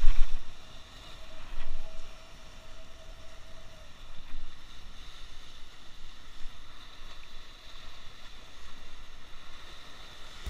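Sea waves breaking and washing over rocks, with wind rumbling on the microphone; a louder surge right at the start and another just under two seconds in.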